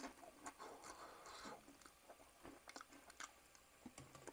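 Faint crunching and chewing of a person eating an air-fried thin chip (French fry), tasting it to check whether it is done, with soft irregular clicks.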